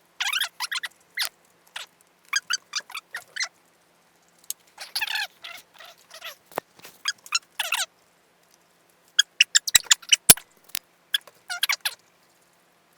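A dog eating hamburgers: irregular short, wet chewing and smacking sounds with brief pauses, and a few sharp clicks about ten seconds in.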